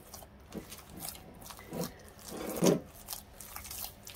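Hands kneading a wet, sticky vital wheat gluten dough in a glass bowl: soft, irregular squelches and sticky slaps, with a louder squelch about two-thirds of the way through.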